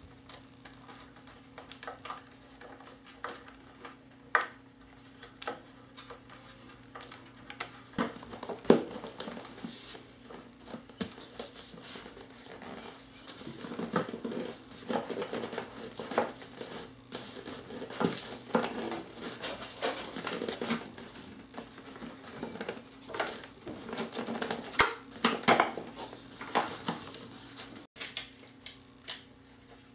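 Hands handling wiring, plastic parts and a seat on a motorcycle: scattered clicks, taps and rustles, busier from about halfway through, over a faint steady hum.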